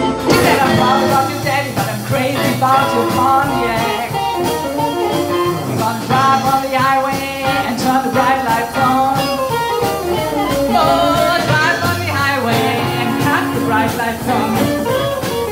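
Live blues band playing: an amplified harmonica wails over electric guitar and drums.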